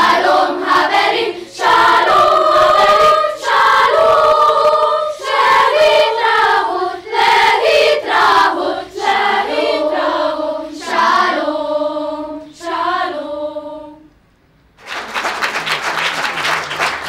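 Children's choir singing unaccompanied in several held notes; the song ends about fourteen seconds in and, after a brief pause, the audience starts applauding.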